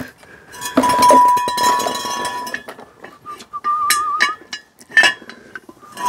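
Metal clinking and scraping as a steel axle stand is worked out from under a jacked-up van on concrete. A ringing metallic note lasts about two seconds, followed by several sharp separate clinks.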